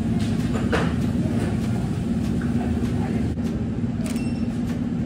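Steady low machine hum of indoor building equipment, with a few light clicks and faint background voices.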